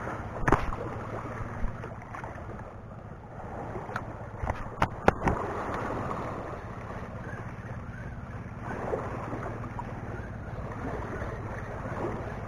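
Small waves washing against a concrete seawall, with wind buffeting the microphone and a steady low hum underneath. A few sharp clicks and knocks come about half a second in and again around four to five seconds in.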